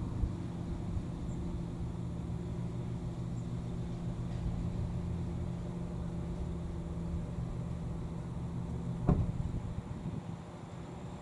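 An idling engine giving a steady low hum, with a single sharp knock about nine seconds in; the hum eases off near the end.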